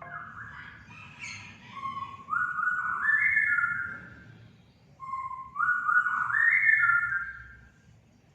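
Orange-headed thrush singing: two phrases of clear whistled notes, each climbing upward in steps, the second one ending shortly before the end.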